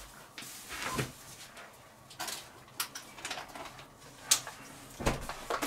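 A person moving about and handling things: about five scattered knocks and clicks, the loudest about four seconds in.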